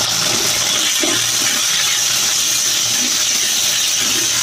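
Onions and tomatoes frying in hot oil in a steel kadai, giving a steady sizzle, with a steel ladle stirring through them and lightly knocking the pan now and then.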